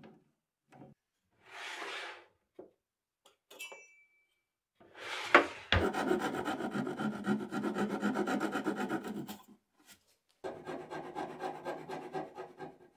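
Hand file worked over the edge of an ash board in quick back-and-forth strokes: a short scrape, then two long runs of rough rasping strokes with a brief pause between them.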